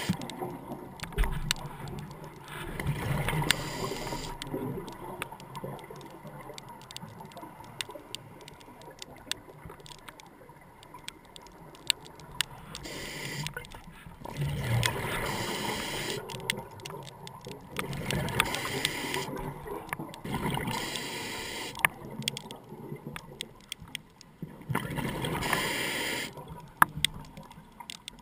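Scuba regulator breathing underwater: a gush of exhaled bubbles every few seconds. Scattered sharp clicks sound between the breaths.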